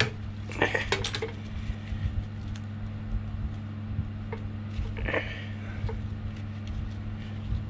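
Light metallic clinks and handling noises as the steel change gears on a Myford Super 7 lathe are moved into mesh, with a paper strip between them setting the spacing. A steady low hum runs underneath.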